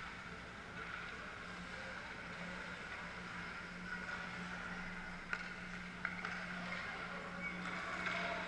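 Ice rink ambience during a youth hockey game: a steady low hum, faint distant voices and two sharp knocks about five and six seconds in.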